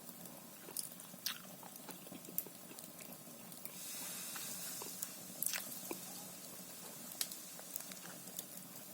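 Fire burning in a Russian stove, crackling with scattered sharp pops over a soft hiss. About four seconds in, the hiss swells for a couple of seconds, as the fire hums.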